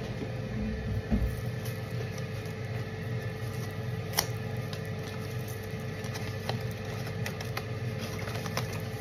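Steady motor hum from a running appliance, with faint light clicks scattered through and one sharper tap about four seconds in.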